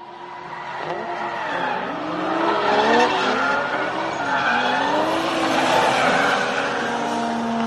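Drift car's engine revving up and down while its tyres screech in a slide, growing louder over the first few seconds. A front wheel has come off, and the bare hub grinds on the asphalt, throwing sparks.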